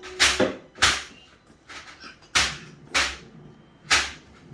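A child making noise with five sharp slaps or bangs, irregularly spaced, two of them about half a second apart near the start.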